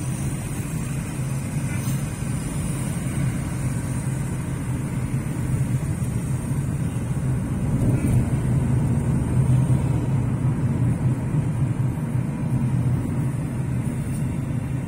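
Steady low rumble of a car heard from inside its cabin, growing a little louder about halfway through.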